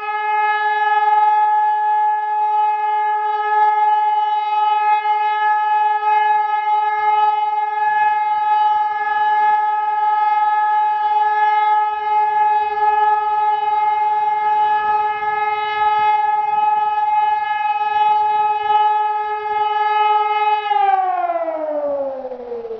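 Hörmann ECN2400 electronic civil-defence siren sounding the all-clear (Entwarnung) signal: one steady, unbroken tone. Near the end the tone falls away in pitch and fades as the signal ends.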